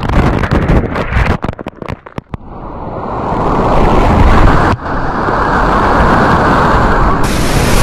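Whitewater rapid rushing around a kayak. For the first couple of seconds it comes in choppy splashes with sudden dropouts as water washes over the camera, then it settles into a loud, steady rushing roar that builds.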